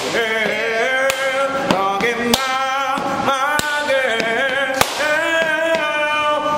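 A voice singing a slow melody with long held, bending notes, cut by a sharp click every second or so.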